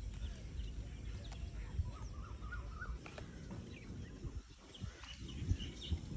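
Outdoor background noise with a low rumble, and a few short bird chirps about two seconds in.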